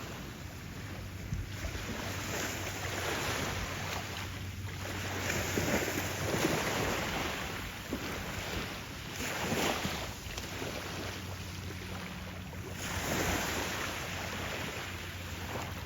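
Small waves breaking and washing onto a sandy beach, swelling every three to four seconds, with wind buffeting the microphone. A faint steady low hum runs underneath.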